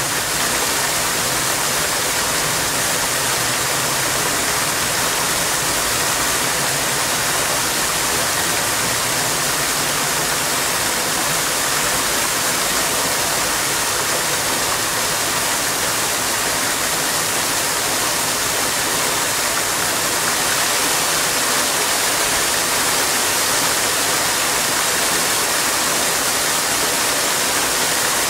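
Fountain water splashing steadily: a ring of vertical jets falling back into a shallow basin, with a dense, even hiss that grows slightly louder about two-thirds of the way through.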